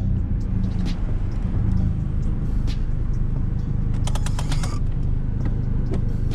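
MK4 VW Golf engine running with an aftermarket CTS cold air intake, a steady low rumble. A quick run of creaking clicks about four seconds in.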